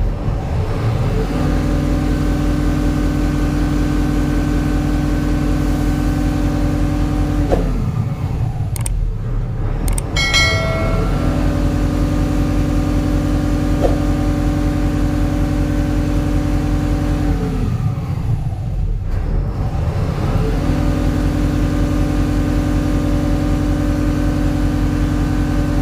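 Mahindra Blazo BS6 truck's turbocharged diesel engine revved and held at high revs three times, each for about six seconds, falling back to idle in between. A short click or two comes near the middle. These are test revs after a burst intercooler that was leaking boost pressure, the cause of an underboost fault, has been replaced.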